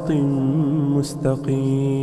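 A man chanting Arabic morning supplications in a slow, melodic recitation, holding long drawn-out notes, with a short break about a second in.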